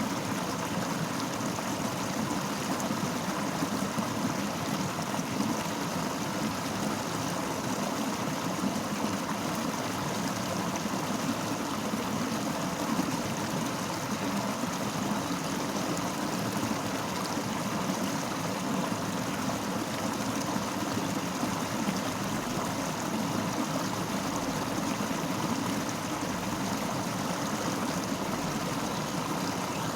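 Fast-flowing river rushing and gurgling over rocks in a steady, even wash of water noise.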